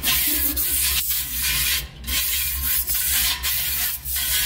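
A long twisted-wire bore brush scrubbed back and forth through the oil passages of a Mopar 440 big-block's cast-iron engine block: rough scraping strokes with short breaks between them. This is the final brushing and degreasing of the freshly machined, chemical-washed block.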